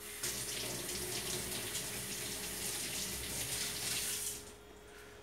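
Water running from a tap as sticky plastic ice-pop bags are rinsed under it; it stops about four seconds in.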